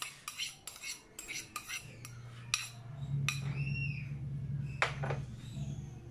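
A small ceramic bowl clinking against a stainless steel mixing bowl as melted butter is emptied out: a quick run of taps for about the first two seconds, then a few single clinks.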